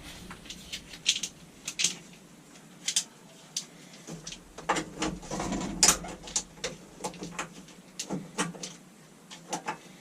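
Irregular clicks, taps and light knocks of hand work on truck parts, with a busier spell of clattering a little past the middle.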